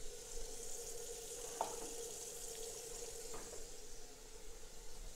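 Pots simmering on the stove: a faint steady hiss with a steady hum under it. Two light clicks of pot or utensil handling come about a second and a half in and again near the middle.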